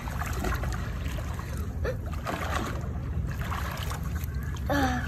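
Pool water splashing and lapping as children swim, over a steady low rumble. A child's short call comes near the end.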